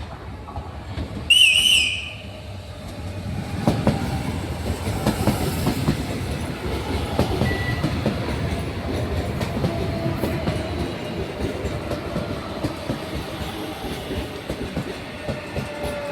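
A short, loud, high horn blast about a second in, then an electric commuter train running close by, its wheels clattering over the rail joints, with a motor whine that falls slowly in pitch near the end.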